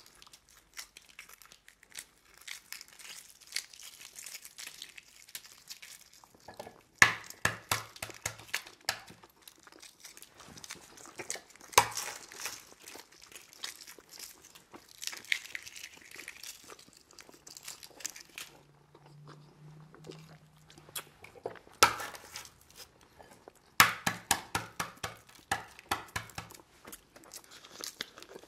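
Shells of hard-boiled eggs being cracked and peeled by hand: scattered crackling and crinkling, coming in denser clusters several times.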